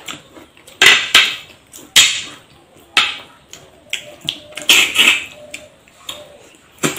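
Close-up eating sounds of duck meat and rice eaten by hand: several sharp, separate smacks and crunches of chewing and lips, spaced a second or less apart.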